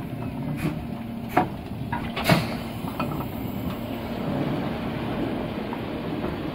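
JNR D51-class 2-8-2 steam locomotive D51 498 rolling slowly forward: a steady rumble from the running gear with several sharp knocks in the first two and a half seconds, the loudest a little over two seconds in.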